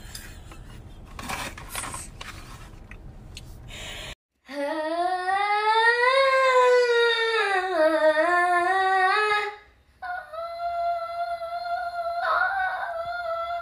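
A girl's voice singing long, drawn-out notes: the first slides up and then back down, and after a short breath a second note is held steady. Before the singing, a few seconds of car cabin rumble.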